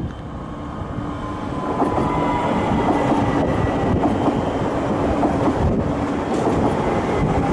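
ÖBB Cityjet electric multiple unit passing close by: rumbling on the rails, growing louder from about a second in, with steady whining tones from its electric drive running over the rumble.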